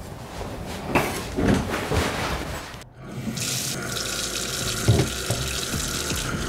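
Water running from a wall-mounted tap into a sink while hands are washed under it. The running water starts abruptly about three seconds in, after a few soft, indistinct sounds.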